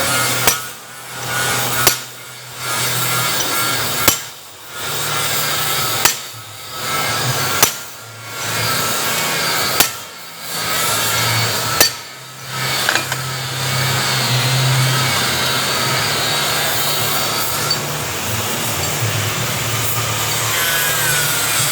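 A hammer strikes metal seven times, about two seconds apart, driving a bearing into place. After the strikes, steady workshop noise with a low hum continues.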